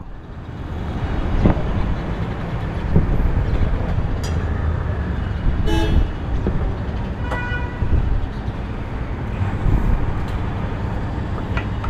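Steady road-traffic noise with a low rumble, and a vehicle horn honking briefly about halfway through, followed a second or so later by a shorter, higher toot.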